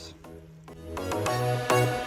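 Background music fading in about halfway through, with repeated deep bass notes.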